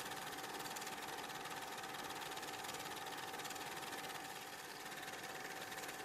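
Film projector running: a steady mechanical whir with a fast, even clatter and a constant hum, with no game sound.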